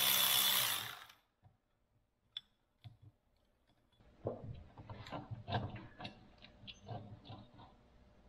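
A cordless ratchet runs on a carburetor mounting bolt and stops about a second in. After a short pause come scattered light clicks and knocks of metal parts being handled as the jet ski's carburetor is lifted off, most of them from about four seconds on.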